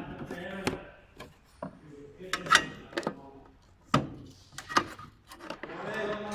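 Plastic parts and trim handled in a car's engine bay: a dozen or so irregular sharp clicks and knocks, with rubbing and scraping between them.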